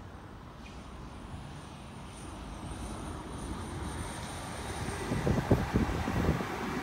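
Sydney Trains Oscar (H set) double-deck electric train approaching and passing close by, its running noise growing louder. About five seconds in, the wheels give a quick run of loud clacks over the track as the front cars go past.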